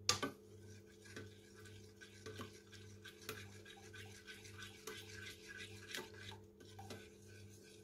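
Small whisk stirring melted chocolate and hot cream in a stainless steel pot, its wires faintly scraping and ticking against the pot in a quick, uneven rhythm as the chocolate is worked into the cream.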